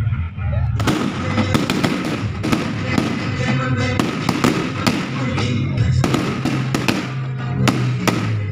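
Fireworks going off in a quick, irregular string of sharp bangs, starting about a second in, with music playing underneath.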